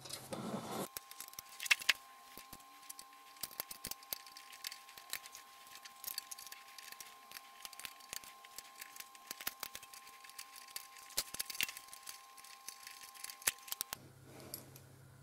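Small irregular metallic clicks and taps of the bottom blade holder being worked off the lower arm of a scroll saw. Under them runs a faint steady whine that starts about a second in and stops abruptly near the end.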